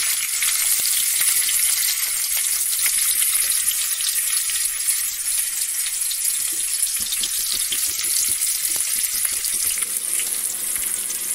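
Stuffed bitter gourds shallow-frying in a little oil in a wok: a steady sizzle with scattered small pops and crackles, most of them about six to nine seconds in.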